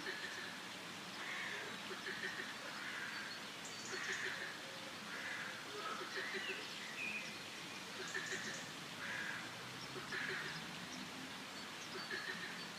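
Forest ambience of birds and frogs calling: short calls repeat roughly once a second over a steady background, with occasional quick trains of low pulsed croaks.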